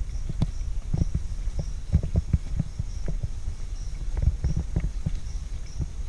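Footsteps thudding on a wet wooden plank boardwalk at a walking pace, about two to three dull low thuds a second.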